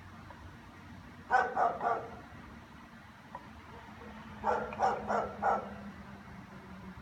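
German shepherd barking: a quick run of three barks, then after a pause of about two and a half seconds, four more.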